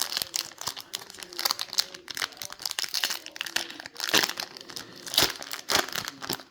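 Foil trading-card pack wrapper crinkling and tearing as it is opened, with irregular crackles and a few sharper snaps about four and five seconds in.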